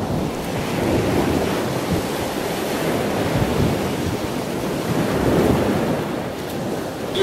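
Surf washing on a shoreline, with wind buffeting the microphone in an uneven rumble.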